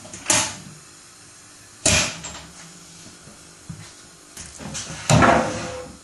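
Samsung WW80J5555 front-loading washing machine on a delicates wash: wet laundry tumbling in the drum, with three loud sudden sloshes as it drops. One comes just after the start, one about two seconds in, and a longer one about five seconds in.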